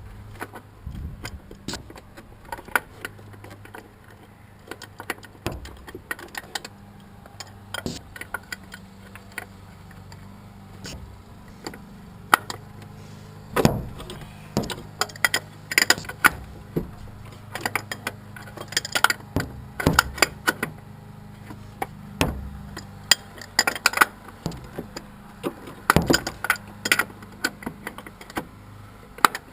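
Irregular metallic clicks, clinks and light knocks of hand tools and parts being handled in an engine bay, over a steady low hum.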